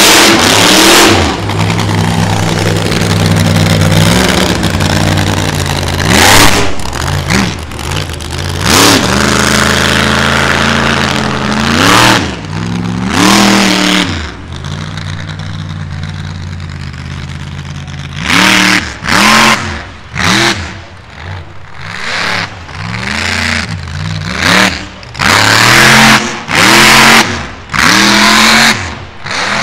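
Monster truck engine running hard, its pitch climbing and dropping with the throttle. Near the middle it settles briefly to a lower, steadier note, then breaks into a series of short, sharp throttle blips about once a second.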